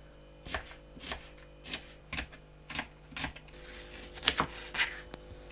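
Kitchen knife chopping onion on a cutting board, sharp strokes about twice a second.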